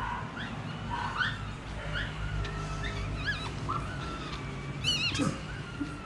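Newborn chihuahua puppy squeaking in short rising cries, about one a second, with a louder, shriller squeal about five seconds in, as it is rubbed dry in a towel just after birth.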